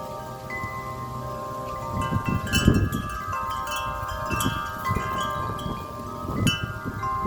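Tuned metal wind chimes ringing in strong gusty wind, with many overlapping notes held and fading. Fresh clusters of strikes come about two to three seconds in and again near the end, with low rumbles of gusts beneath.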